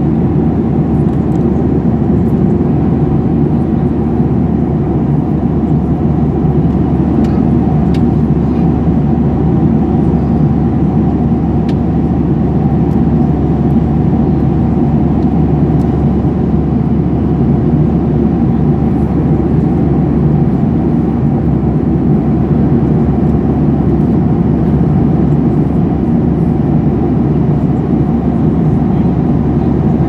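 Steady, loud cabin noise of an airliner in flight, a deep even rumble.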